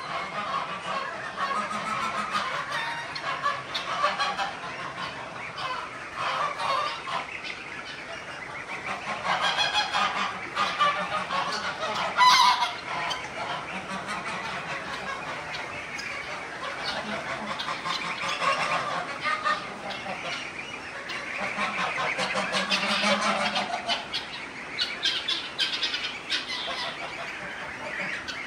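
Geese honking in irregular bouts, loudest about twelve seconds in, over the crackle of köfte frying in oil in a pan.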